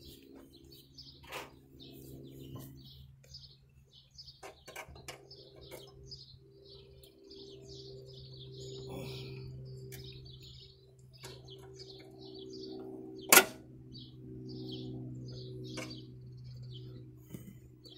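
Small birds chirping over and over above a steady low hum, with scattered clicks and clinks of hand work on the riding mower's engine. One sharp metallic clank about thirteen seconds in is the loudest sound.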